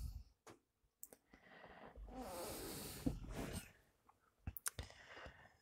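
A quiet cab with a soft breathy rush about two seconds in and a few light clicks near the end, from the person filming breathing and handling the phone.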